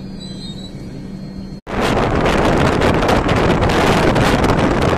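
A quieter stretch with a steady hum cuts off abruptly about a second and a half in. Then loud wind rushes over the microphone, along with the rumble of a passenger train running along the track.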